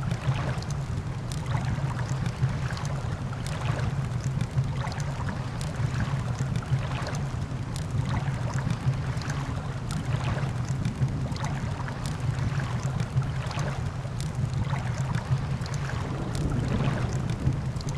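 Campfire crackling with irregular sharp pops over a steady low rumble of surf and wind.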